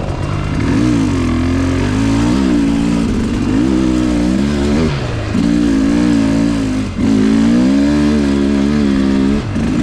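Two-stroke dirt bike engine running hard on a trail, its pitch rising and falling with the throttle, easing off briefly about five, seven and nine and a half seconds in.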